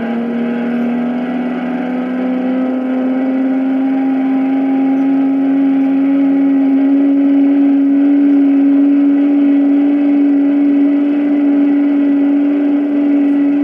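Racing sports car engine running hard at speed, one steady note that climbs slowly in pitch, heard from the soundtrack of a Super 8 film print.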